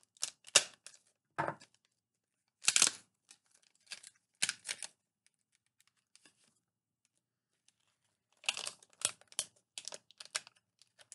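Small retail packaging being cut and torn open with a pocket knife: a run of short scratchy rips and clicks, a pause of about three seconds midway, then another quick run near the end.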